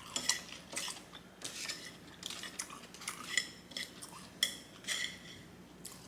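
Chopsticks clicking and scraping against a plate while picking up food: a string of short, sharp clicks, a few with a brief ring.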